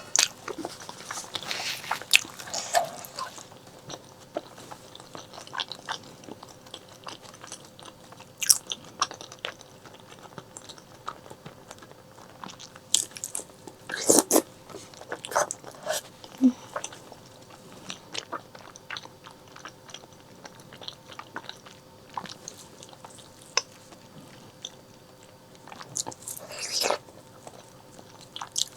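Close-miked mouth sounds of eating braised pork leg: irregular biting, chewing and wet smacking. The sharp clicks bunch louder about two seconds in, around the middle and near the end.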